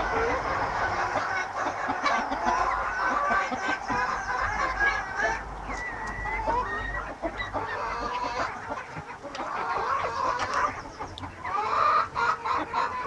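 A flock of silkie chickens clucking and calling, many short calls overlapping without a break.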